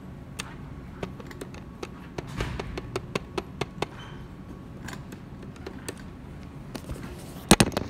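Scattered light clicks and taps, then two loud knocks close together near the end.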